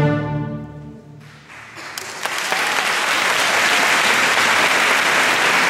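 An orchestra's final chord dies away. About two seconds in, the audience breaks into steady, loud applause.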